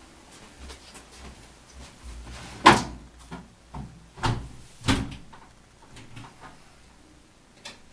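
A few sharp clunks and knocks at irregular intervals over a faint background. The loudest comes almost three seconds in, and two more follow about a second and a half and two seconds later.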